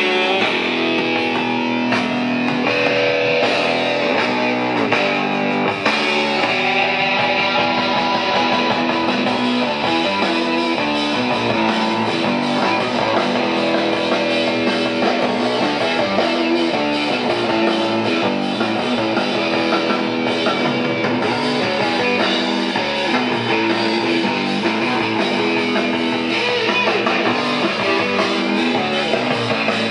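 Guitar-led rock music played by a vintage Cygnus AC-200 stereo integrated amplifier through IBS loudspeakers, fed from a CD player on the auxiliary input and heard in the room.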